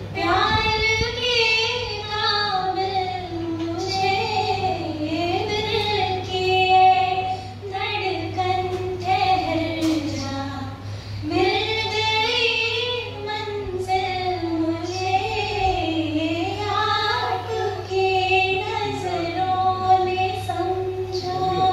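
A woman singing unaccompanied into a handheld microphone, in two long, slow melodic phrases with a short breath about eleven seconds in. A steady low hum runs underneath.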